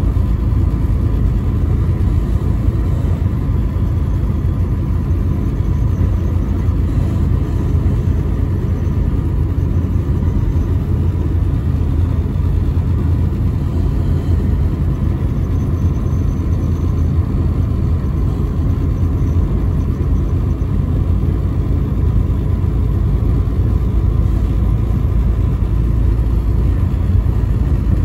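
Steady low rumble of engine and tyre noise heard inside a vehicle cruising at highway speed.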